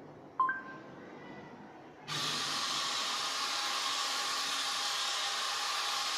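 A short electronic beep from the phone's speech-recognition prompt. Then, about two seconds in, the Arduino robot car's small DC gear motors start suddenly and run with a steady whirring hiss, driving the car through a left turn on the voice command.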